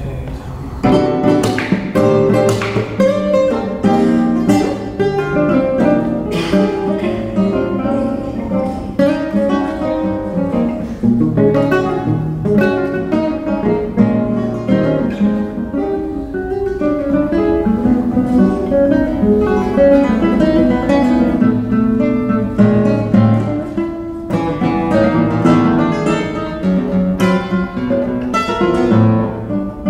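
Two classical guitars, an Antônio de Pádua and a 2009 Paulo Marcos, playing a contemporary duet live: dense plucked notes, chords and lines in counterpoint. The playing starts about a second in.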